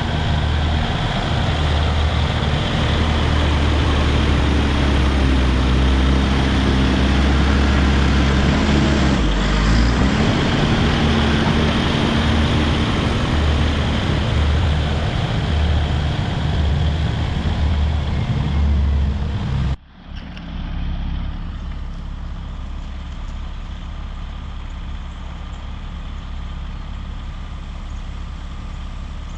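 Caterpillar D5 bulldozer's diesel engine running hard, with a heavy low rumble. About twenty seconds in, the sound cuts off abruptly and the engine carries on quieter and thinner.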